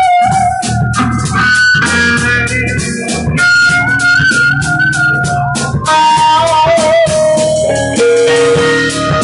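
Electric guitar playing a blues-rock lead with long held, wavering notes over a drum kit, played live by a guitar-and-drums band.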